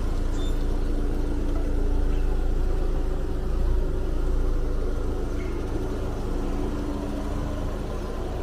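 Car engine running steadily at low speed as a constant low hum with rumble, its fuel pump assembly newly replaced.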